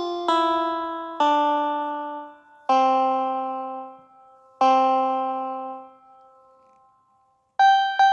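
Background music on a plucked string instrument: slow single notes stepping down in pitch, each left to ring out, then a short pause and a quicker run of notes near the end.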